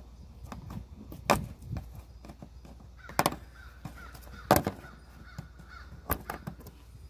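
Plastic push-in retainer clips being pried up with a thin flat tool: small clicks and scrapes, with four loud, short sounds about one and a half seconds apart.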